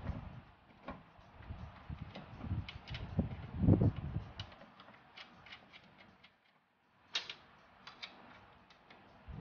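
Irregular metallic clicks, taps and low knocks as nuts are worked onto the studs of a car's front strut top mount. There is a short pause a little past six seconds in, then a sharp click.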